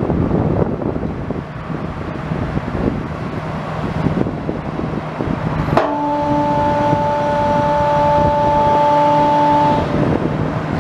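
Isuzu six-cylinder turbo diesel engine of a Link-Belt 330 LX excavator running steadily. About six seconds in, a sharp click is followed by a steady whine that holds for about four seconds over the engine.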